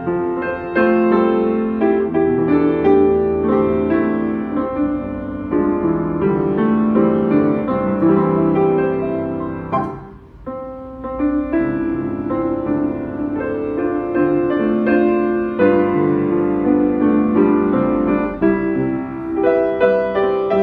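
A 1988 Yamaha YU1 upright piano being played, with flowing melody and chords. There is a brief pause about halfway through before the playing resumes.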